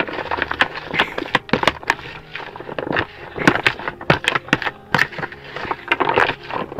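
Close handling noise: a string of irregular sharp clicks and crackles, a few a second, as hands work with bait packets and tackle.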